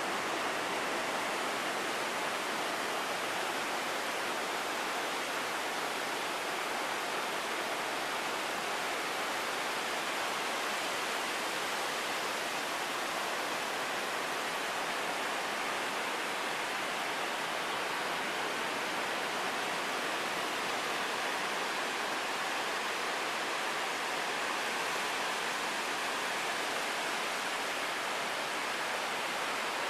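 Ocean surf: a steady, even rush of breaking waves, with no separate wave crashes standing out.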